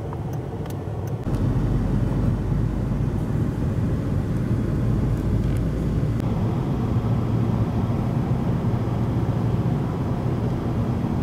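Steady low rumble of a climbing Boeing 737 airliner's jet engines mixed with nearby road traffic, growing louder about a second in.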